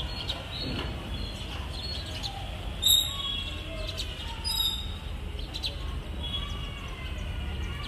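A flock of house sparrows chirping: many short, overlapping chirps over a steady low rumble, with two louder, sharper calls about three and four and a half seconds in.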